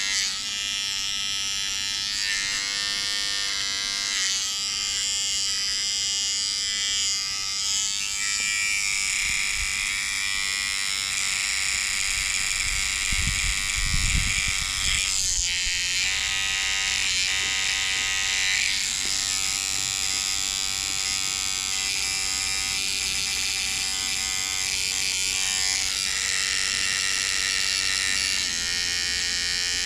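Electric shaver running with a steady buzz as a beard is shaved, its pitch dipping briefly a couple of times around the middle.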